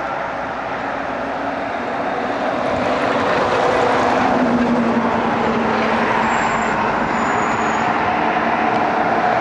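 Liebherr A316 wheeled excavator's diesel engine running steadily as the machine works, with a few held tones over the engine noise, growing a little louder about three seconds in.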